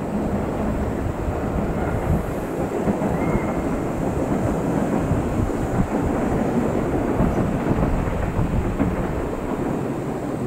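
Commuter train cars rolling past close by: a steady low rumble of wheels on the rails.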